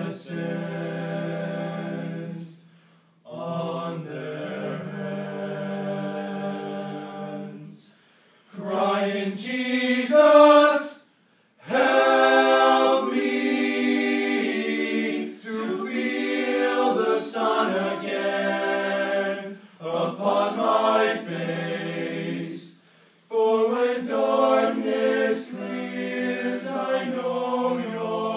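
Male a cappella ensemble of eight voices singing slow sustained chords in close harmony, phrase by phrase, with several short breaks between phrases.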